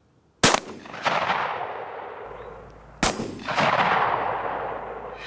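Two 12-gauge shotgun blasts about two and a half seconds apart, each a sharp crack followed by a long rolling echo that dies away over about two seconds.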